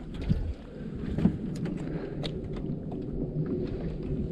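Small boat's outboard motor idling low and steady, left in gear, with scattered light clicks and a brief knock about a second in.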